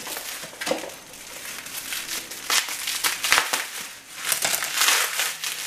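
Clear plastic wrapping crinkling and crackling irregularly as it is handled and pulled off a small bottle.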